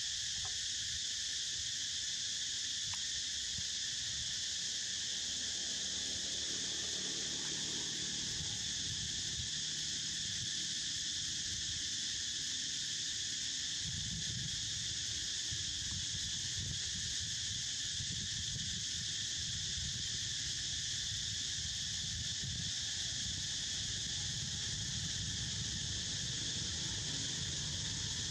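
Steady, high-pitched chorus of insects, an unbroken drone. A low rumble joins about halfway through.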